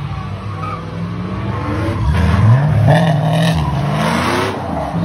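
A vehicle doing donuts: its engine revs up about two seconds in and keeps climbing while the tyres screech as they spin.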